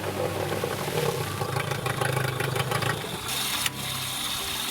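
15 hp Yamaha outboard motor running with a 3D-printed propeller fitted, a steady engine drone that eases back about three seconds in, with a few sharp clicks near the end.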